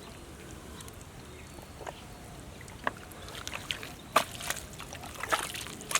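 Splashing and squelching in muddy pond water: a quiet stretch, then scattered short wet slaps and splashes from about three seconds in, the loudest just after four seconds.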